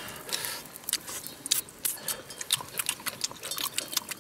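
Close, irregular crackles and clicks of fingers picking apart a charred, fire-roasted fish, mixed with lip-smacking and chewing as it is eaten.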